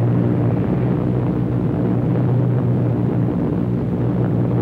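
Steady, loud drone of a WWII bomber's propeller engines in level cruising flight, a low hum with even overtones that holds unchanged.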